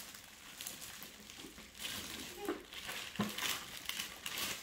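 Clear plastic wrap crinkling in irregular crackles as a large wrapped toy camper is handled and turned over.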